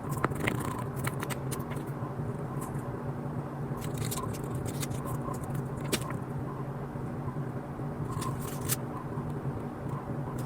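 Scattered sharp clicks and small crackles of plastic being handled, a cluster about a second in, one near the middle and a few near the end, over a steady low hum.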